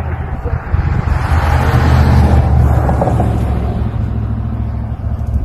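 A motor vehicle passing by, its engine and road noise swelling to the loudest about two seconds in and then slowly fading.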